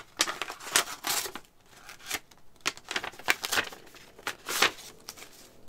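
Paper being torn and crinkled by hand as an envelope is opened, in irregular rustling bursts with short pauses between them.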